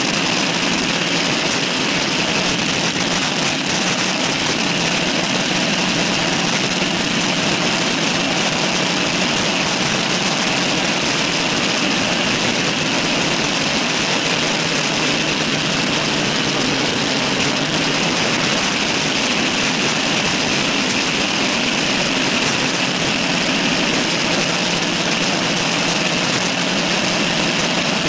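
Steady wind rush on a handlebar-mounted camera's microphone, mixed with the tyre and road noise of a road bike riding along, with no distinct events.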